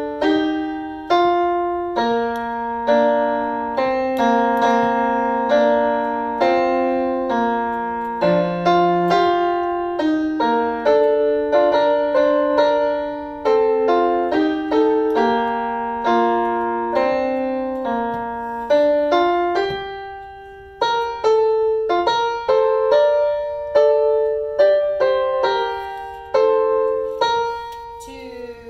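Piano music: single notes and chords struck and left to ring, with a brief pause about two-thirds through.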